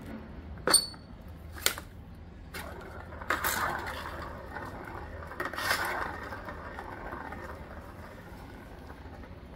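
A plastic pizza-shaped pet toy with bug figures on metal coil springs is knocked about. There is a sharp click with a brief metallic ring about a second in, then another click, then two rattling stretches of plastic-and-spring clatter.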